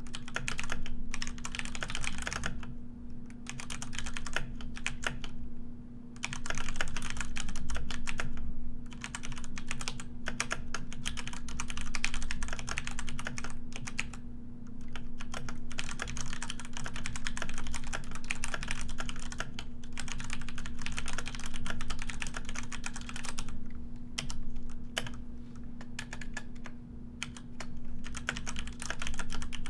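Typing on a computer keyboard: fast runs of key clicks broken by short pauses every few seconds, over a steady low hum.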